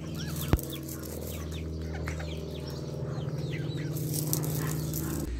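Many short bird chirps over a steady low hum, with one sharp falling sweep about half a second in; the whole sound cuts off abruptly near the end.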